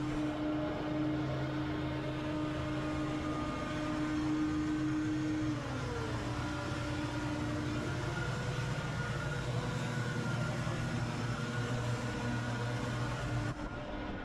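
An engine running steadily; its pitch drops about five and a half seconds in, and the sound changes abruptly near the end.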